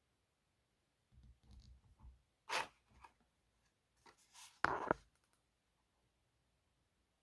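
Small objects being handled: low rubbing about a second in, then two sharp knocks or clacks about two seconds apart, with light scraping between them; the second knock is the loudest.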